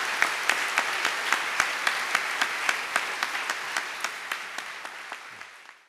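Audience applauding, a dense patter of hand claps that dies down and cuts off near the end.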